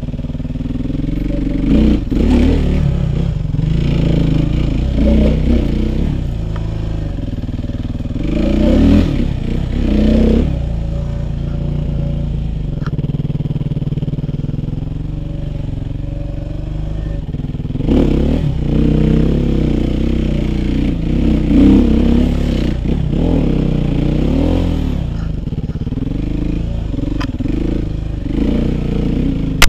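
Suzuki RM-Z450's single-cylinder four-stroke engine running at low revs, with several bursts of throttle as the bike is worked over rocks, and a few knocks from the bike against stone.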